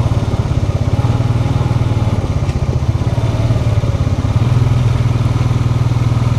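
ATV engine running at a steady pitch as it is ridden, loud and close.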